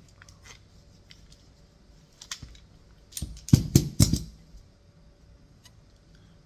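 Tube cutter turned around a copper pipe, with small metallic clicks as it rolls and is tightened. A little past three seconds in comes a quick run of loud, sharp knocks as the cut pipe breaks apart and the metal pieces are handled.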